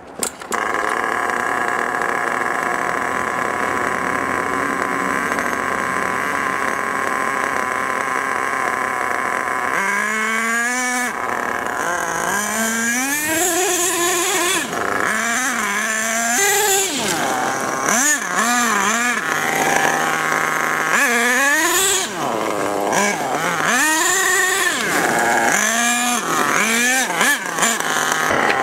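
HPI Savage 3.5's small two-stroke nitro engine, tuned rich on the high-speed needle, starts up suddenly and holds a steady high-pitched drone for about ten seconds. After that the revs rise and fall over and over as the throttle is opened and closed while the truck drives.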